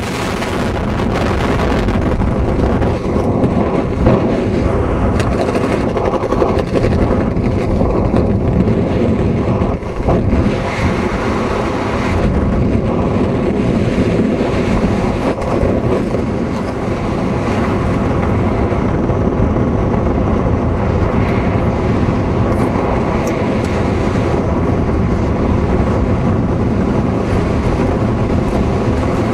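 Steady rush of airflow over a helmet-mounted camera's microphone while descending under an open parachute canopy.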